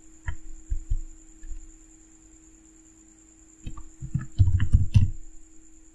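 A few clicks near the start, then a quick run of computer keyboard keystrokes about four seconds in, over a steady low electrical hum.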